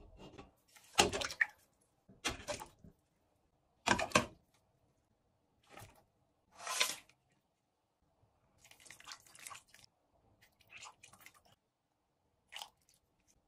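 Ingredients being added by hand to a stainless steel stockpot of water: a series of short, separate knocks, rustles and plops, the loudest in the first few seconds, with a slightly longer one as spring onion and ginger are slid in from a board about six and a half seconds in.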